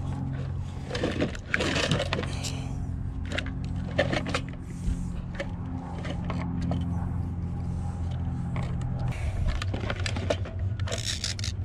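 Scattered light clicks, knocks and scrapes of a fuel pump assembly's plastic parts being handled and worked apart by hand, over a steady low hum.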